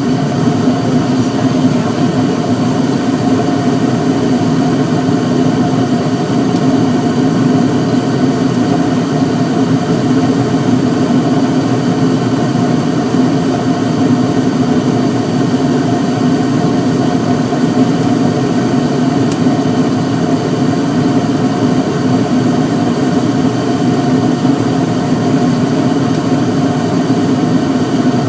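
2001 York gas furnace running in full heating mode, burners firing and blower fan on: a loud, steady hum with a low drone and the rush of moving air.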